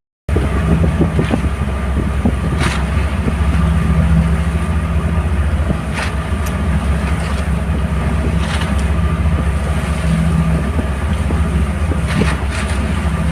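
Small fishing boat's engine running steadily at constant speed with a low hum, with a few brief noisy bursts over it.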